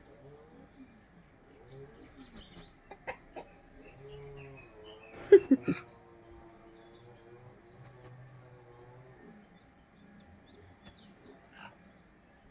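A hen making happy noises: a string of soft, low, murmuring clucks and trills, with a couple of louder calls about five seconds in.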